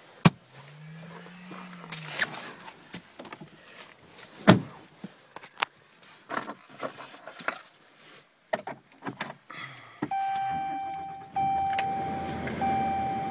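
Clicks and knocks from the centre console lid and compartments being handled. About ten seconds in, a dashboard warning chime starts as a steady tone broken by short gaps, while the 6.7-litre Cummins turbo diesel runs at idle underneath.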